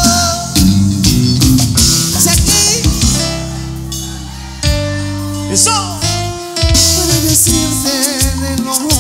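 Live band playing cumbia: a melody line over a steady bass and drum beat, with a short softer stretch about four seconds in.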